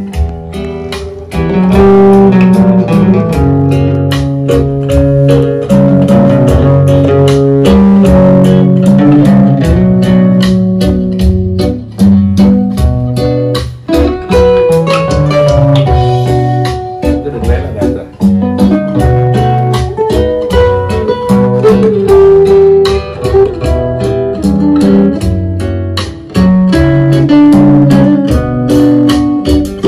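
Vietnamese bolero song playing back on a hi-fi system, with guitar to the fore over bass and a steady beat.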